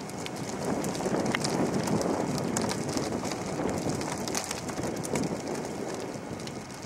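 Wind buffeting the microphone, a rough, uneven rumble that swells about a second in and eases off toward the end, with faint scattered crackles and clicks.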